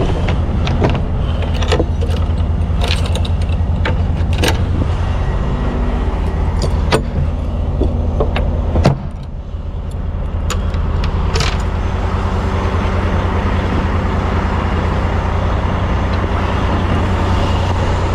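Tractor-trailer's diesel engine idling steadily, with scattered metallic clanks and knocks and one loud bang about nine seconds in.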